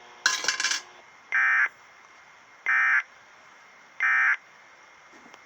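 Emergency Alert System end-of-message code: three short digital data bursts, each about a third of a second long and about 1.3 seconds apart, marking the end of the alert broadcast. Just before them comes a brief, loud burst of noise.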